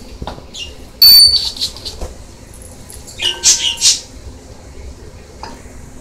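A pet bird calling: a sharp, loud whistled call about a second in, then a quick burst of high squawks and chirps around three to four seconds in.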